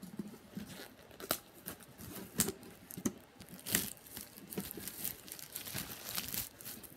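Plastic packaging being torn and crinkled off a Pokémon card box by hand, in irregular crackles with a few louder snaps.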